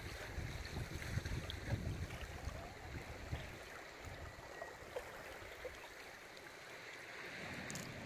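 Seashore ambience: sea water washing and trickling among rocks, with wind buffeting the microphone in gusts over the first few seconds.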